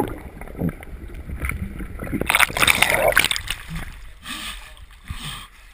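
Pond water splashing and sloshing close to the camera as someone moves in it, loudest for about a second midway through.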